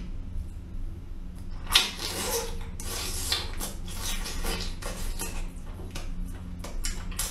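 Close-up chewing of a whole braised spicy squid: wet, irregular mouth clicks and smacks, with a louder bite about two seconds in, over a steady low hum.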